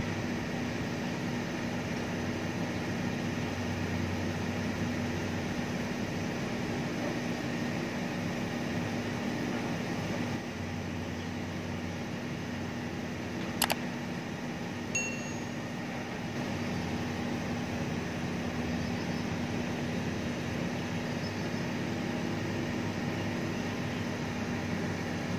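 Heavy diesel engine of the earthmoving equipment running steadily with an even hum, with one sharp click about thirteen and a half seconds in and a brief high ding a second or so later.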